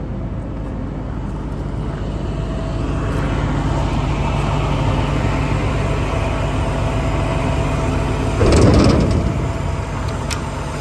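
Truck diesel engine idling steadily, with a broad noisy swell that builds and is loudest about eight and a half seconds in before falling back.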